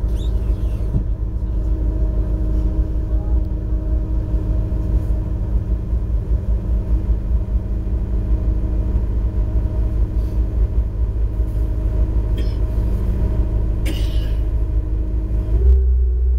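Boat engine running steadily under way, heard from inside the cabin as a loud, even drone with a deep rumble. Near the end the engine note shifts and the low rumble grows louder.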